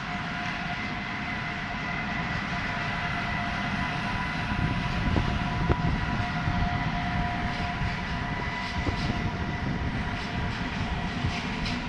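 Siemens EuroSprinter electric locomotive hauling an intermodal freight train past, its drive giving a steady whine of several tones over the rumble of the train. The train gets louder about four to five seconds in, with a few sharp knocks of wheels over rail joints.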